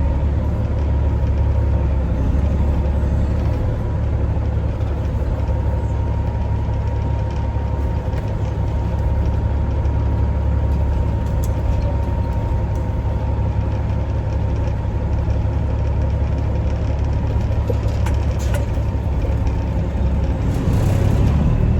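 Peterbilt semi truck's diesel engine running at a steady, even speed, with a steady whine over the low rumble.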